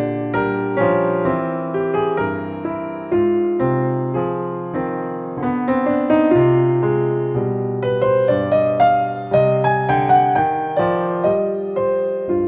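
Background music: a gentle piano piece, notes struck one after another with their decays.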